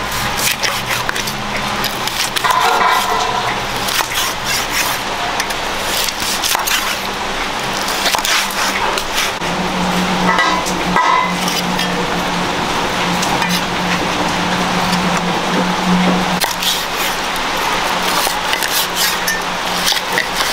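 Hot oil sizzling and crackling steadily as pork trotters fry, with a steady low hum underneath.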